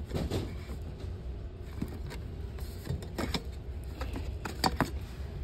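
Handling noise: a few sharp clicks and knocks, the loudest about four and a half seconds in, over a low steady rumble, as merchandise on a store shelf is touched and moved.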